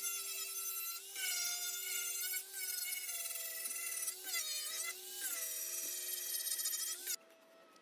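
Handheld electric power tool whining at high speed, its pitch dipping briefly several times as it bites into the work. It is most likely stripping body filler from the steel front panel. It cuts off suddenly near the end.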